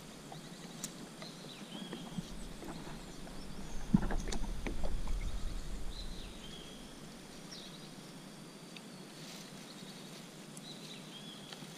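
Knocks and rustling as a fish is unhooked in a landing net on a plastic kayak, loudest about four to six seconds in, with short bird calls in the background.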